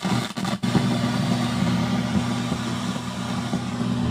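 Static from a fire-damaged 1970s Kenwood stereo receiver played through a small speaker: a steady hiss over a low, steady hum, cutting out briefly twice in the first half-second.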